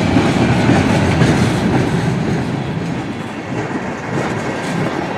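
Freight train's covered hopper cars rolling past, their wheels clacking over the rail joints with a heavy rumble that grows quieter after about three seconds as the end of the train goes by.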